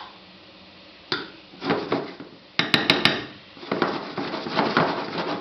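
A metal spoon scraping and clinking against a non-stick frying pan while spooning sugar syrup over banana slices. There are three quick clinks about halfway through, then denser scraping near the end.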